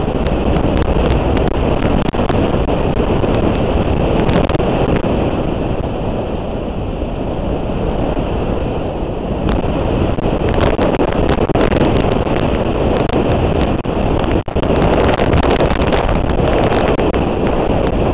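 A motorcycle riding at speed: heavy wind noise on the microphone over the bike's engine and road noise, with a brief dip about 14 seconds in.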